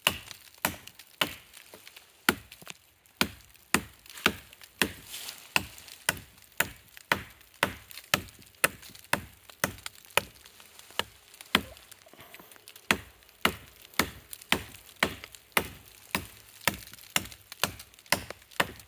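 Small SOG hatchet chopping into a thick poison ivy vine on a tree trunk: a steady run of sharp blows into wood, about two a second.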